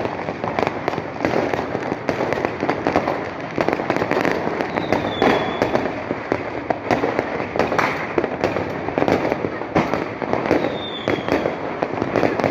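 Fireworks going off in a dense, continuous barrage of crackling pops and bangs, with a brief high whistle dipping in pitch twice.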